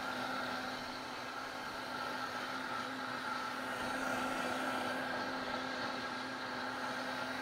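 Vitamix Ascent A3500 blender running at full speed (setting 10), a steady whir with a constant hum, blending black bean soup. It is running long on high so that the friction of the blades heats the soup.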